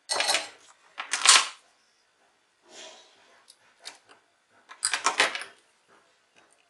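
Handling noise from the opened plastic headset casing and metal tweezers being moved about on a desk: short bursts of rustling and clicking, loudest at the start, about a second in and about five seconds in.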